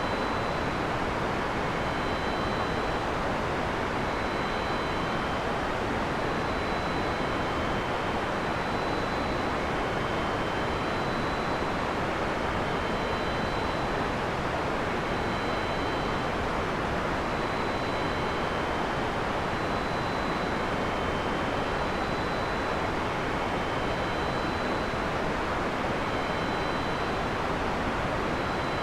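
Steady heavy rain falling in a forest: a constant, even hiss. Faint high tones come and go every second or two above it.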